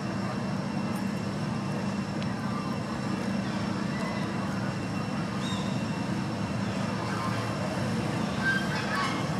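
Steady low mechanical hum, like a motor running at a distance, with a few faint high chirps near the end.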